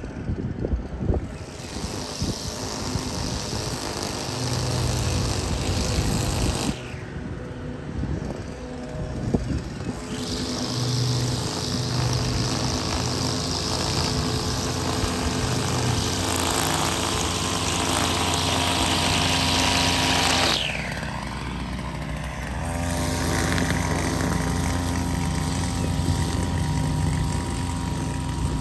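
Gas string trimmer revved in long bursts, dropping back to idle twice, about a quarter of the way in and again about three-quarters through, with a falling whine as the throttle is let off the second time.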